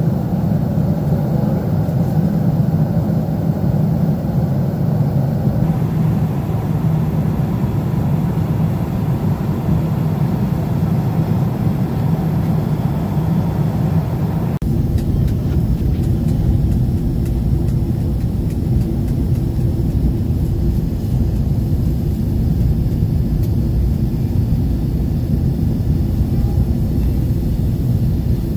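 Steady cabin noise of a Boeing 767-400ER airliner in flight, heard from a window seat beside the wing: a low rumble with airflow hiss. About halfway through it changes abruptly to a deeper rumble with less hiss.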